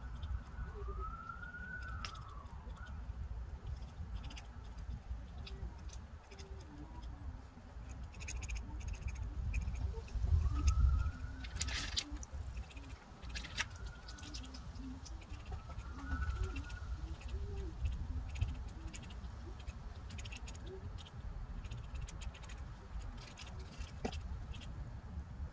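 Street ambience: a distant siren wailing in slow rises and falls several times, over a steady low traffic rumble that swells briefly near the middle, with scattered sharp clicks.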